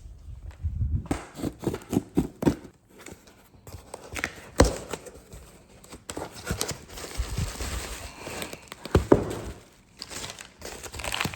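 Packaging being handled and opened: irregular crinkling and rustling with scattered sharp knocks, the two loudest about four and a half and nine seconds in.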